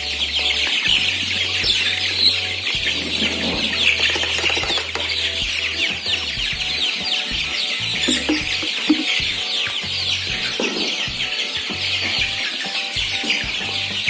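A flock of 27-day-old kampung super chicks peeping together in a dense, continuous high-pitched chorus.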